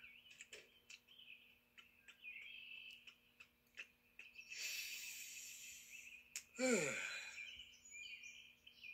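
Cartoon soundtrack with light bird chirping throughout, a breathy rushing sound around five seconds in, and a sliding voice-like tone falling steeply in pitch about seven seconds in.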